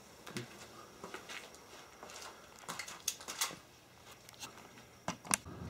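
Faint, scattered footsteps and small handling clicks, with two sharper taps near the end.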